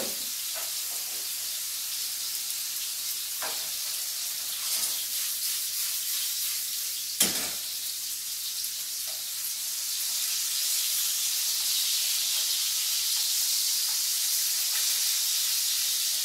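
Salmon fillets searing in hot oil in a skillet, with cauliflower rice cooking in a second pan: a steady sizzle that grows a little louder about ten seconds in. A couple of sharp knocks come through it, the loudest about seven seconds in.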